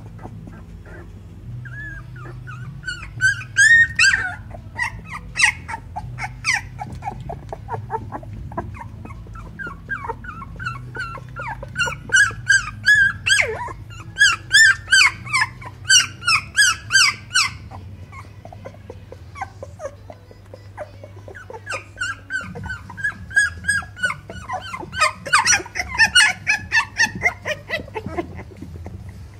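Twelve-day-old Wolfsspitz (keeshond) puppies whimpering and squeaking: runs of short, high calls in three bouts, with pauses between.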